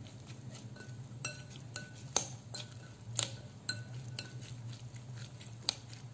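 A metal spoon stirring chopped tomato salad in a ceramic bowl, clinking sharply against the bowl at irregular moments, a dozen or so times, over a steady low hum.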